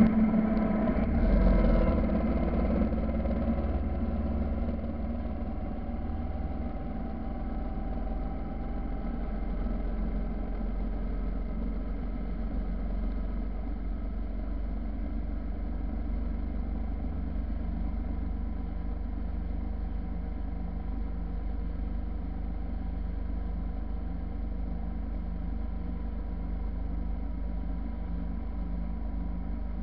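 Motorcycle engine running while riding, with low wind rumble on the microphone. It is louder, with the pitch shifting, in the first few seconds, then settles to a steady cruise.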